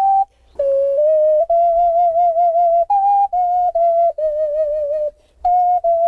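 Ocarina playing a slow melody: a single line of clear held notes, the longer ones with vibrato, with two short pauses, one just after the start and one about five seconds in.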